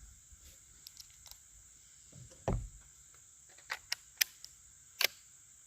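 A few short sharp clicks and a soft thump, like something being handled, over a steady high insect drone.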